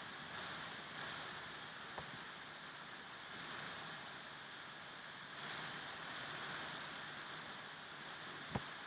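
Steady background hiss with faint swells, broken by two small clicks, one about two seconds in and a louder one near the end.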